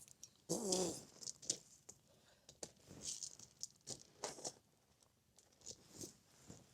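Faint scattered clicks and rubbing as a cork is tried back into the neck of an opened sparkling wine bottle. A brief voiced murmur comes about half a second in.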